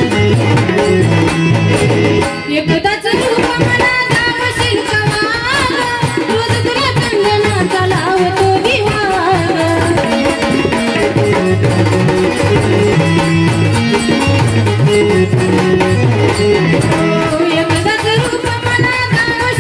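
A woman singing a Marathi devotional folk song over drum accompaniment that keeps a steady rhythm; the music thins briefly about two seconds in.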